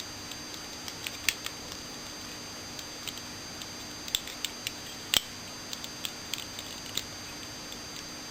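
Scattered small plastic clicks and light knocks from a Beast Wars Fuzors Airhammer action figure being handled through its transformation from beast mode to robot mode. The sharpest knock comes about five seconds in, over a steady faint electrical hum.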